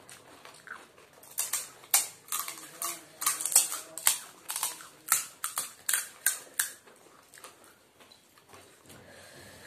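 Hard, thick ready-made fuchka (pani puri) shells crunching as they are cracked open with the fingers and chewed: a quick run of sharp crackles that dies down about seven seconds in.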